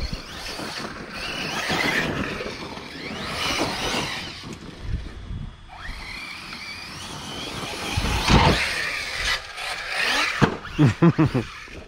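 Brushless electric RC trucks running on 4S batteries, their motors whining in pitch that rises and falls repeatedly as they speed up and let off. A few loud thumps come near the end.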